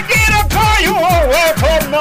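Background music: a sung, wavering melody over a beat of deep bass drums that drop in pitch and crisp hi-hat ticks.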